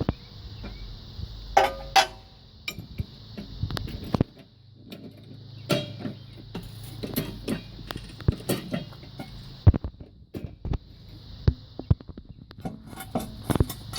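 Scattered light metallic clicks, clinks and knocks from hands working with tools and parts at a car's wheel, over a steady high hiss.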